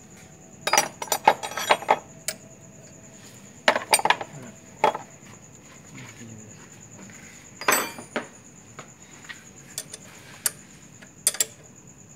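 Metal hand tools clinking and clattering against metal in irregular clusters of sharp knocks, with a steady high-pitched tone behind them.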